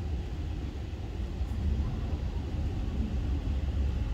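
Dubai Metro train: a steady low rumble, growing slightly louder after about a second.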